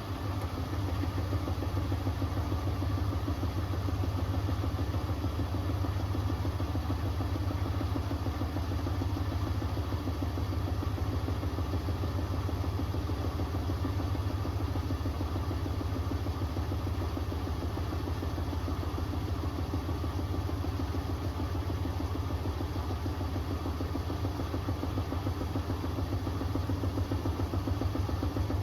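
Hoover Axi 10 kg front-loading washing machine spinning at steady high speed, a constant low hum and whir, louder from the start than just before. This fits the final spin near the end of its Rapid 30-minute programme.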